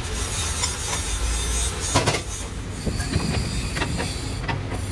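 Metal clanks and clicks from clamping a large steel tube into a lathe's four-jaw chuck, over a steady low hum. One loud clank comes about two seconds in, followed by a run of lighter clicks and knocks.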